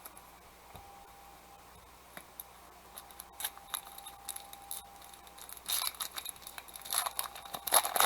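Trading cards and their pack wrappers being handled: faint clicks and slides of cards for most of the time, then a dense run of sharp crinkling and snapping in the last couple of seconds.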